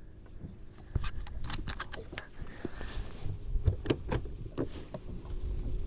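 Scattered light clicks and knocks at an uneven pace, over a low background rumble.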